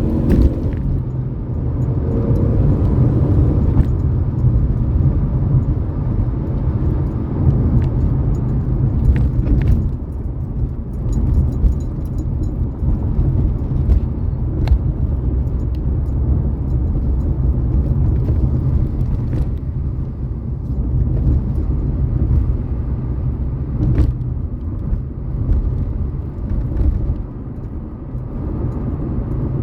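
Ford Fiesta EcoBoost's engine and exhaust running with a steady low rumble.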